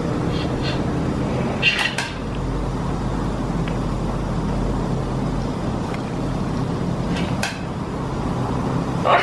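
A few short knocks and clicks over a steady low hum: a pair about two seconds in, one about seven and a half seconds in, and a sharper one near the end.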